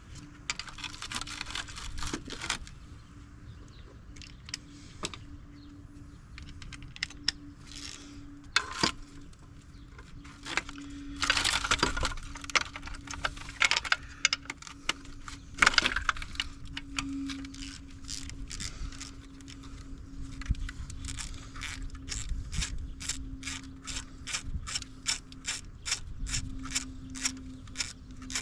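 Hand socket ratchet working exhaust manifold bolts on a GM 5.3 L LS V8. It clicks in irregular runs, then settles into a steady ratcheting of about three clicks a second near the end, over a faint steady low hum.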